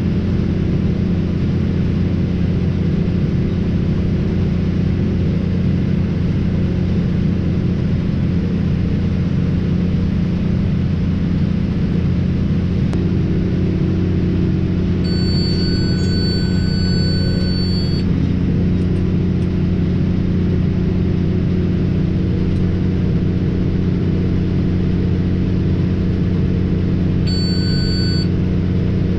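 Tractor engine running steadily while working a round baler, giving an even low drone. A high electronic warning tone sounds for about three seconds past the middle and again briefly near the end.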